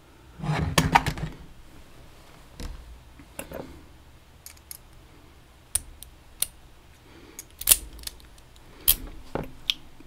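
Small metal clicks and taps from handling a Vachette VIP lock and lockpicking tools. A short burst of clatter comes about half a second in, followed by sharp, irregular single clicks every second or so.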